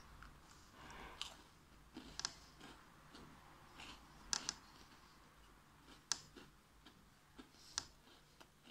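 Faint, close chewing of a crunchy Nutella Biscuits biscuit: a few sharp, separate crunching clicks a second or two apart.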